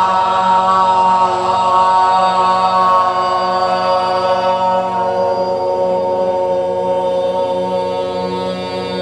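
A group of women's voices holding one long sung 'ah' in unison on a single steady pitch. This is a pansori breath-and-voice drill: one deep breath, then the tone is sustained on the exhale, slowly fading in the second half.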